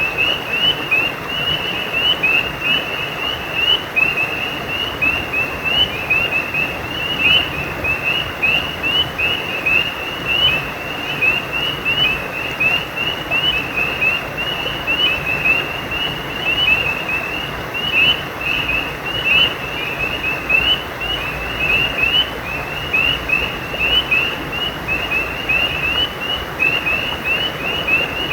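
Frogs calling over a running stream: an unbroken chorus of short, high, slightly rising chirps repeating several times a second, over the steady rush of flowing water.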